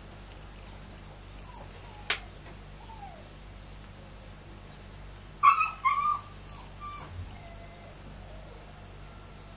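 A sharp click about two seconds in, then two short, loud, high animal calls about halfway through, with fainter chirps and squeaks around them.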